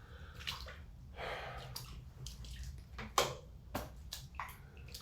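Footsteps splashing through shallow standing water, about a quarter inch deep, on a flooded floor: several irregular wet splashes over a low steady hum.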